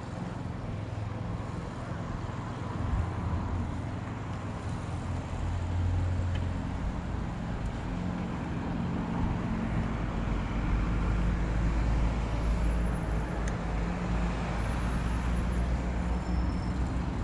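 Outdoor background noise made up mostly of a steady low rumble, which grows louder about six seconds in and again past the middle.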